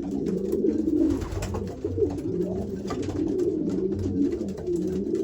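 Racing pigeon cock birds cooing in a small loft, several at once, their low calls overlapping without a break.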